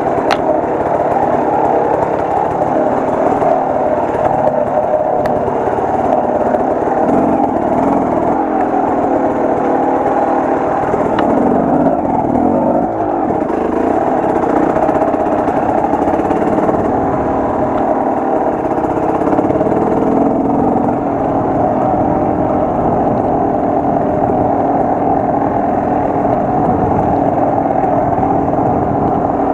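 Enduro motorcycle engine running continuously as the bike is ridden, its pitch rising and falling with the throttle, with a brief drop in revs about twelve seconds in.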